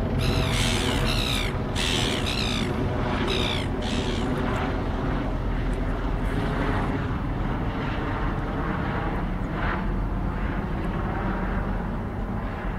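Diesel-electric locomotives of a freight train running in the distance, a steady low drone. A bird calls repeatedly, in short falling notes, over the first few seconds.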